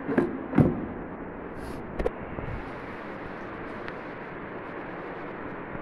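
A few sharp knocks on the stainless-steel lid of a laboratory recirculating chiller near the start and again about two seconds in, over the steady running noise of the switched-on chiller.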